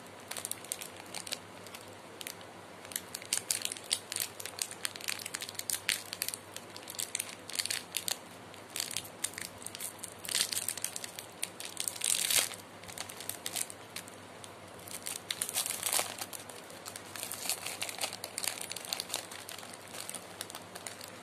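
Plastic wrapper of a Britannia Tiger glucose biscuits packet crinkling and crackling as it is twisted and torn open, in irregular crackles that are loudest about twelve seconds in.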